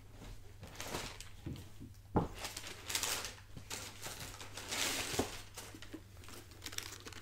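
Cardboard shoebox being opened and a sneaker taken out: soft rustling and handling sounds, with a sharp knock about two seconds in.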